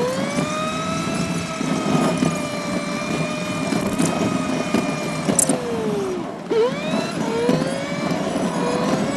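A small vehicle engine running at fairly high revs with a steady pitch. It drops off about six seconds in, then picks up and climbs again.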